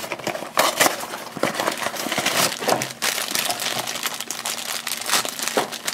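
Black plastic-foil blind bag crinkling and crackling in the hands as it is unwrapped, in irregular rustles.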